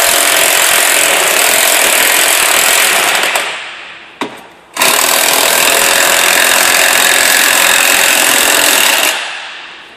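A loud power tool running in two long spells, winding down each time it is released. The first spell is about three seconds, then there is a sharp click, and the second starts abruptly at about five seconds and lasts about four more.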